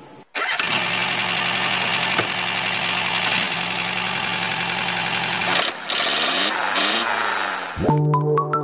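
Small electric motor and gear drive of a miniature DIY model tractor running steadily as it drives, with a brief dip about three-quarters of the way through. Music starts near the end.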